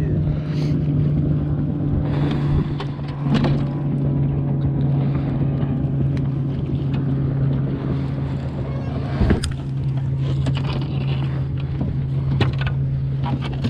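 A boat motor running at a steady hum, with a single sharp knock about nine seconds in.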